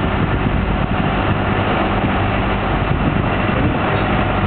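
Boat's engine running steadily underway, a loud, even hum.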